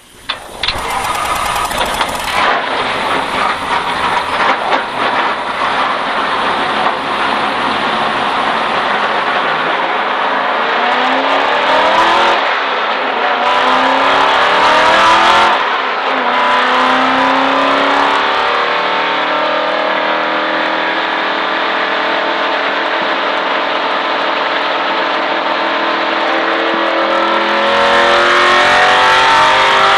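V8 stock race car engine pulling away from a standstill, climbing in pitch with breaks at the gear changes, then running hard at speed.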